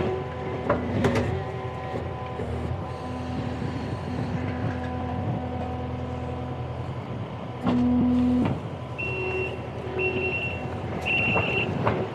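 Kubota SSV75P skid steer running steadily at work, with a few knocks about a second in. Near the end its backup alarm beeps three times as it reverses.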